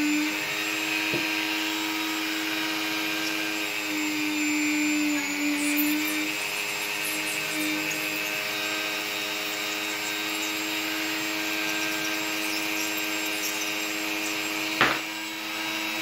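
Dremel rotary tool running at a steady speed, spinning a brass lock key pin in its collet while a pin-vise drill bit bores a hole down the pin's centre. A single sharp click about a second before the end.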